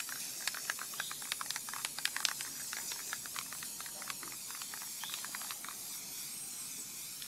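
Aerosol spray-paint can spraying: a steady hiss, with a quick scatter of small sharp clicks over it that dies out about six seconds in.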